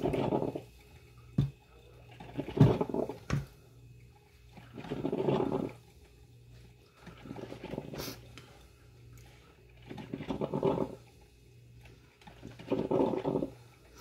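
Coffee maker brewing, its noise coming in bursts about every two to three seconds, with a few sharp clicks in between.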